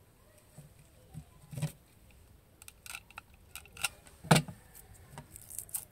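Utility knife blade cutting and scraping through the plastic outer jacket of a coaxial antenna cable: a run of irregular crisp clicks and scrapes, the loudest a little past the middle.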